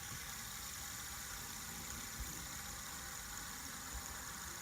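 A steady whirring hiss with a faint, constant high whine, unchanging throughout.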